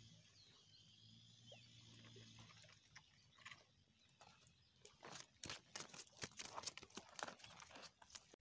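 Faint crunching clicks of footsteps on loose river pebbles, coming several times a second over the last three seconds or so.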